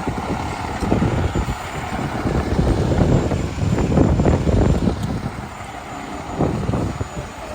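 Fire truck's diesel engine running with a low rumble that swells and eases, mixed with wind buffeting the microphone.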